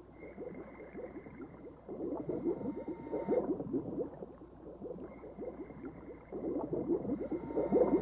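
Scuba diver breathing through a regulator underwater: bubbling that swells twice, with a thin steady whistle alongside each breath.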